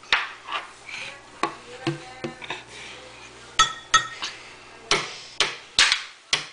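A toddler banging a plastic spoon against a glass measuring cup and the kitchen counter: a string of irregular knocks and clinks, about two a second, some ringing briefly.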